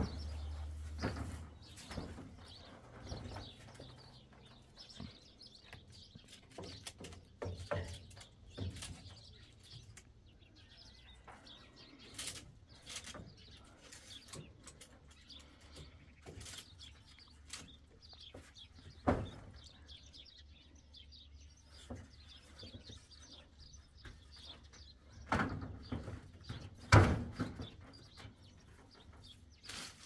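Small birds chirping, with scattered knocks and clatters of wood and sticks being handled, the sharpest about two thirds of the way through and near the end.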